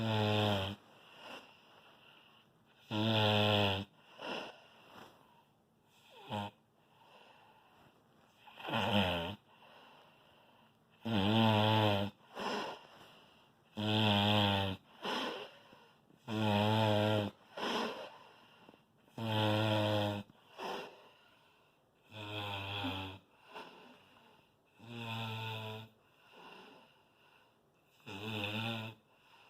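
Loud snoring: about ten long snores with a wavering pitch, one every two and a half to three seconds, with softer breaths in between.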